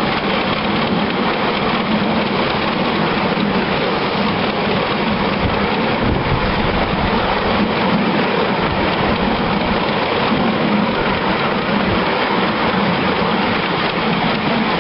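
Steady, loud rushing noise from a ride on a miniature live steam railway: a Sweet Pea tank locomotive running along the track. No separate exhaust beats stand out.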